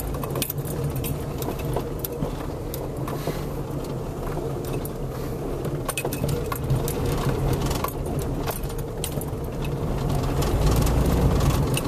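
Car driving slowly over a rough, rutted dirt road, heard from inside the cabin: a steady engine and road rumble with frequent rattles and clicks as it bounces over the bumps, the rumble growing louder near the end.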